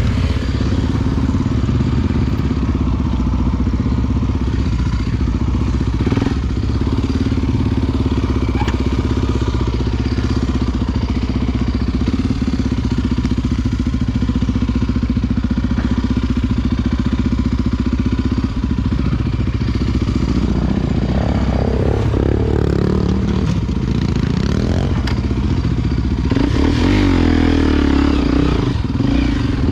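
Honda XR Tornado 293 single-cylinder four-stroke motorcycle engine running under way. It runs steadily for most of the time, and its revs rise and fall about twenty seconds in and again near the end.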